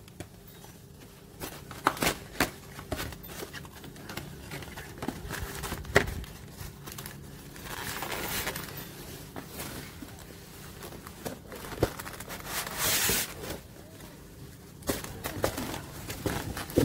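A cardboard box and its plastic packaging being opened and handled: scattered taps and clicks, with bursts of crinkling and rustling about 8 and 13 seconds in.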